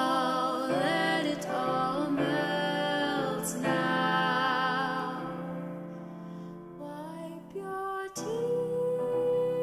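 Slow music: a wavering melody line over held low chords, settling into a long steady note about eight seconds in.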